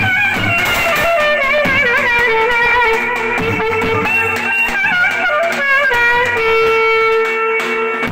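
Clarinet playing a Turkish folk melody with quick ornamented, sliding runs, settling on a long held note about six seconds in, over steady davul bass-drum strokes.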